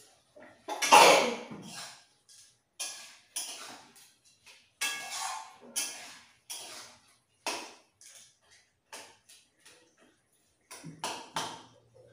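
A person sneezing again and again in a long run of short, explosive bursts with brief silences between, the one about a second in much the loudest, brought on by the chilli fumes of spicy cooking.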